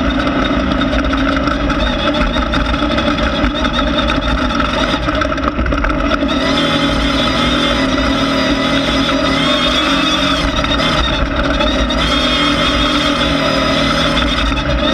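Air-cooled Volkswagen flat-four engine of a Class 1600 off-road race car running hard at speed, heard steadily without a break; its sound grows brighter about six seconds in.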